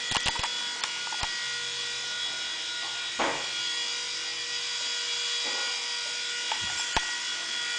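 Air Hogs Havoc Heli mini RC helicopter hovering, its small electric motors and rotors giving a steady high whine. A few sharp clicks sound in the first second and once more near the end.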